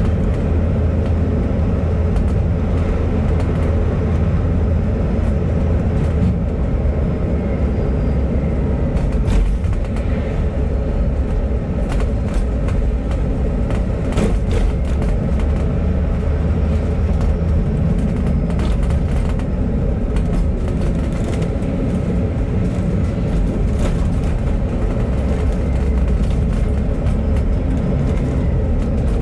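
Bus in motion heard from inside the cabin: a steady low engine and road rumble, with occasional light clicks and rattles.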